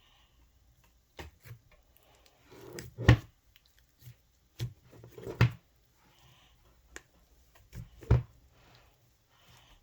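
Slime being handled: a series of separate sticky squishes and sharp clicks, the loudest about three seconds in and again about five and a half seconds in.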